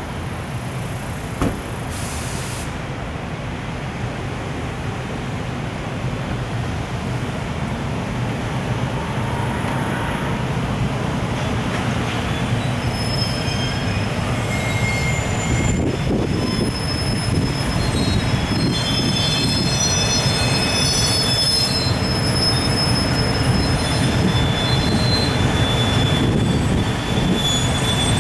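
A container freight train hauled by an EF510 electric locomotive pulling away, its rumble growing steadily louder. From about twelve seconds in, high thin wheel squeals come and go more and more often. There is a single sharp click about a second and a half in.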